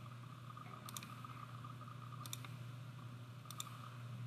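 Computer mouse clicked three times, about a second and a half apart, each a quick double click of press and release, over a faint steady low hum.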